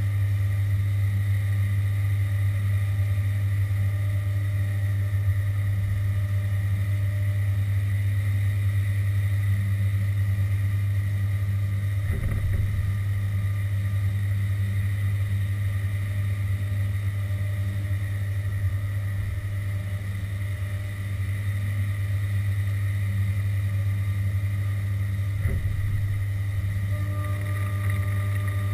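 Haas VF2 CNC vertical mill running: a steady low hum with a steady high whine over it. Two brief knocks come through, one a little before halfway and one near the end, and a new higher tone joins just before the end.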